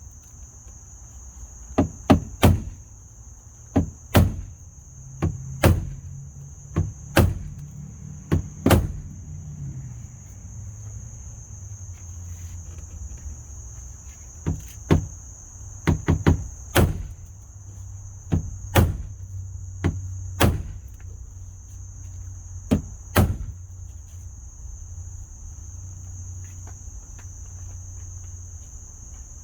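Hammer blows flattening the damaged mirror mounting area of a 1996 GMC Yukon door so that the replacement mirror will sit flat. There are two irregular runs of sharp strikes, about a dozen and then about seven, with a pause of several seconds between them.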